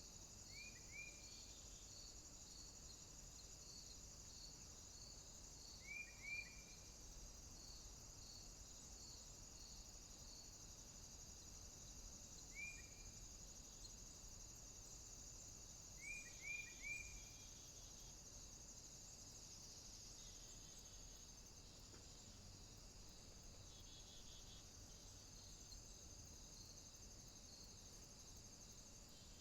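Faint outdoor insect chorus: a steady high trill of crickets, with a regular pulsing chirp about twice a second that stops about ten seconds in. Short falling bird chirps come now and then in twos and threes.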